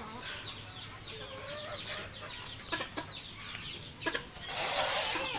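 Chickens clucking and small birds chirping: many short, quick falling chirps overlap throughout. A rustling hiss comes in during the last second.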